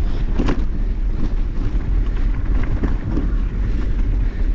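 Wind buffeting the microphone over a steady low rumble from a mountain bike riding a rocky trail, with a few short knocks and rattles from the bike.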